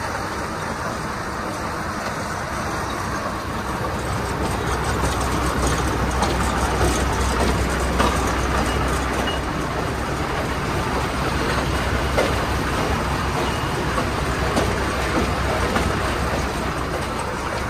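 Tractor engine running, driving a Claas 465 RC Variant round baler whose moving parts clatter steadily. The engine hum grows louder about four seconds in.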